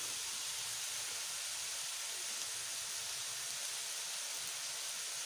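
Chopped cabbage, carrot and capsicum sizzling in hot oil in a metal karahi over high heat: a steady, even hiss.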